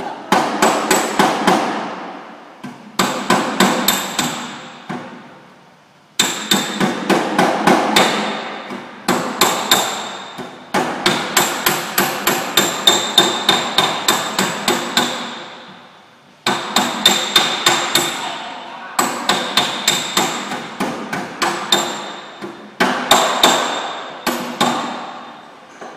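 Body hammer beating out the sheet-metal front fender of a Volkswagen Golf in quick runs of blows, several a second, each run lasting a few seconds with short pauses between. The panel rings metallically under the strikes.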